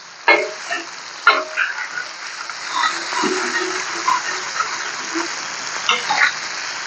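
Minced mutton (keema) sizzling on a large hot tawa as a metal spatula turns it, with sharp clacks and scrapes of the spatula against the griddle. The sizzle is a steady hiss that grows louder about two seconds in. The keema is nearly done, its last added water cooked off.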